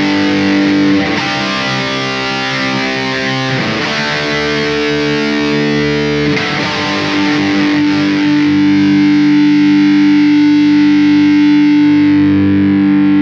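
Charvel Skatecaster electric guitar played with heavy distortion: a few held chords, changing roughly every two to three seconds, the last one left ringing through the second half.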